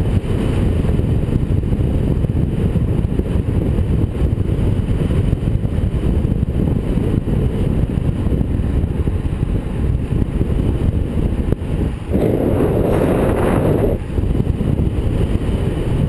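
Wind buffeting a handlebar-mounted camera's microphone on a fast road-bike descent: a loud, steady low rumble of rushing air. About twelve seconds in, a brighter rush rises for about two seconds and then drops back.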